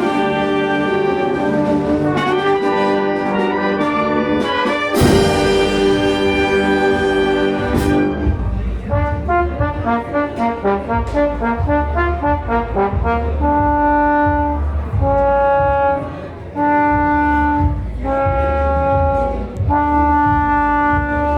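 Mexican banda filarmónica playing: trumpets and trombones in held chords, a cymbal crash with a bass drum beat about five seconds in, then a run of quick short notes, then long held notes in phrases of about a second and a half over steady low drum beats.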